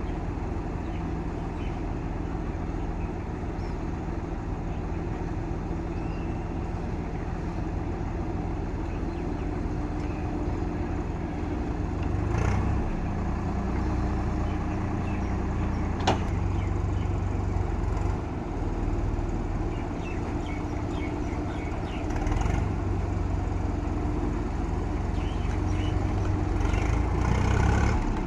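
JCB 3DX backhoe loader's diesel engine running steadily, revving up under load a little before halfway and again near the end, with one sharp metallic knock just past halfway.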